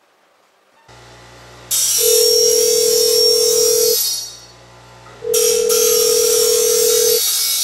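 Mobile phone ringing with an incoming call: a steady ring about two seconds long, twice, with a gap of about a second between rings, over a loud high hiss.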